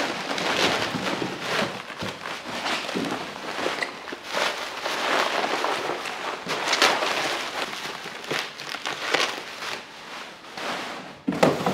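Bubble wrap rustling and crinkling, with many small clicks, as it is handled and pulled off a car headlight.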